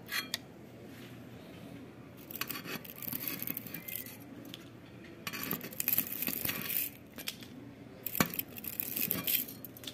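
Old aluminium winding wire being pulled out of the steel stator slots of a 1/2 hp WEG pump motor: several spells of scraping and rustling with small metallic clinks and a sharp click about eight seconds in. The wire slides out easily, having almost no factory varnish.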